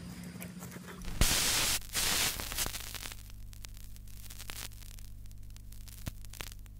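Static and electrical hum: two loud bursts of hiss about a second in, then a steady low hum with scattered crackles and clicks.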